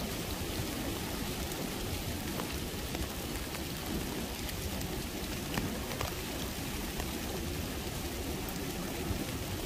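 Steady rain falling in the woods: a constant hiss with scattered sharp ticks of individual drops striking nearby.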